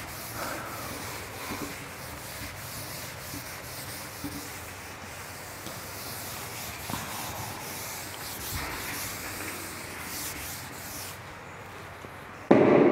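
Chalkboard duster wiping chalk off a board in repeated rubbing strokes. A brief, louder sound starts suddenly near the end.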